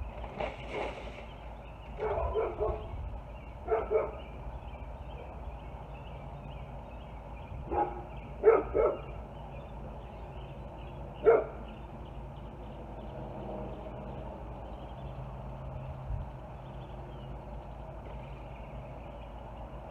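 A dog barking: short, separate barks, a few at a time, scattered through the first dozen seconds and stopping about eleven seconds in.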